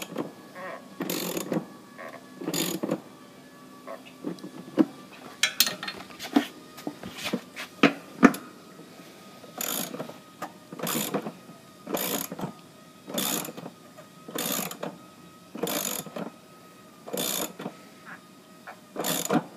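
Socket ratchet clicking as the compressor's mounting bolts are snugged down. It is irregular at first, then settles into regular strokes a little over a second apart.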